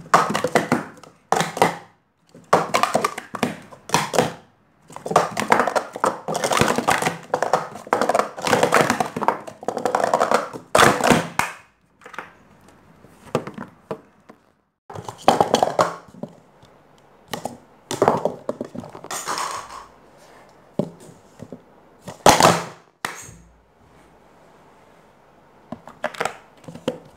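Speed Stacks sport-stacking cups clattering as they are stacked up and down at speed: a dense run of plastic clacks for about the first eleven seconds, then sparser knocks, with a short quick clatter of a downstack near the end.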